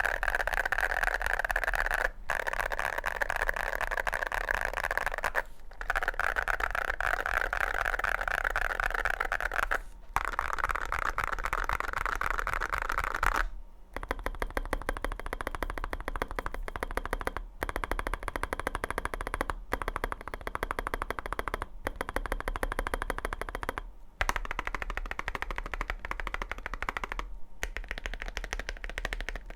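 Fast typing on a Chilkey SF60 keyboard with WS Poseidon magnetic Hall-effect switches, CNC aluminium keycaps, an aluminium plate and a gasket-mounted aluminium case. The keystrokes come as rapid clacks in runs of a few seconds with short pauses. About halfway through, the keystrokes become sparser, more separate and brighter.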